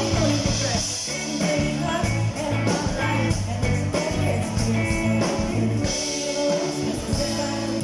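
Live band playing a pop-rock song on drum kit, electric bass, and electric and acoustic guitars, amplified through the stage PA.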